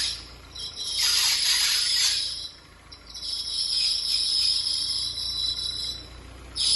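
Renault Duster's 2.0 16-valve F4R engine idling on a cold first start while its accessory drive belt squeals in repeated high-pitched bursts, some lasting a few seconds. The mechanics suspected the air-conditioning compressor pulley or the power-steering pulley; the belt had been replaced without the rest of the set.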